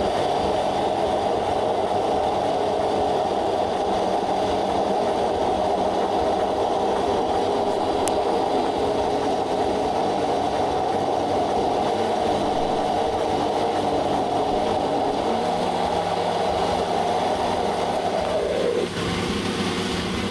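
Electric blender motor running steadily at full speed, puréeing a wet jerk seasoning paste of peppers, ginger, garlic, herbs and oil. It stops about 19 seconds in.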